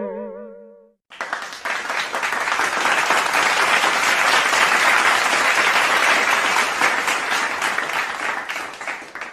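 Audience applause, a dense patter of many hands clapping, starting abruptly about a second in and cutting off sharply near the end. Before it, the tail of a wobbling, boing-like tone fades out.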